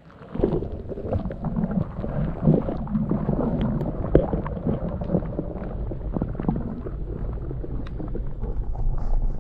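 Storm wind buffeting the microphone as a low, gusting rumble, over the rushing water of a storm-swollen creek, with scattered light knocks.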